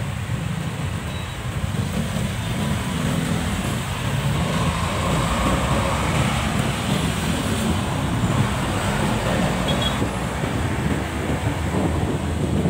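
Engine and road noise heard from a vehicle moving through heavy city traffic, a steady low rumble that grows a little louder about four seconds in.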